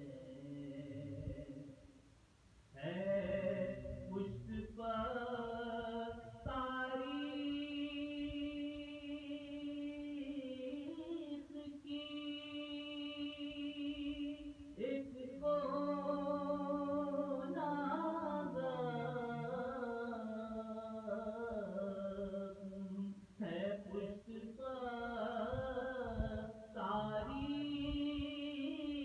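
A man chanting soz, an Urdu Muharram elegy, in an unaccompanied solo voice. He holds long notes with wavering melodic ornaments and pauses briefly about two seconds in.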